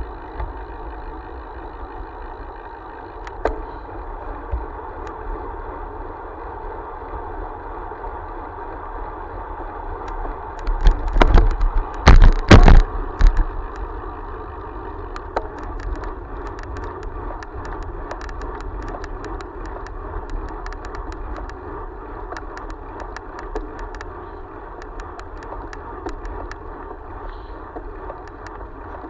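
Steady wind and road noise on a camera travelling along a road. A cluster of loud thumps and buffeting comes about eleven to thirteen seconds in, and light rattling ticks recur through the second half.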